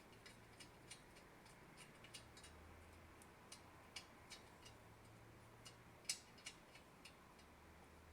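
Faint, irregular light clicks and taps of a wrench on metal as a bolt on the drill press is tightened, the loudest click about six seconds in.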